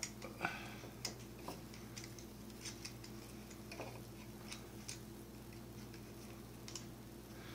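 Faint, irregular small clicks and taps from a metal heating element and its wiring being handled and fitted into a wooden vaporizer top, over a faint steady hum.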